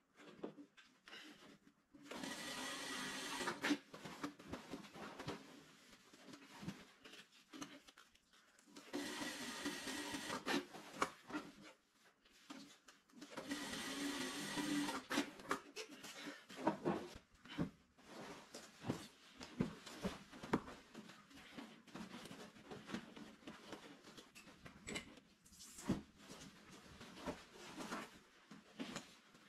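JAKI industrial sewing machine running in three short runs of about two seconds each while stitching brocade, with clicks and rustling of the fabric being handled in between and in the second half.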